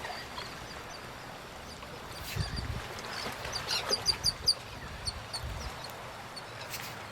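A small bird chirping: a quick run of short, high notes, about five or six in a second near the middle, with a few scattered chirps before and after, over steady outdoor background noise.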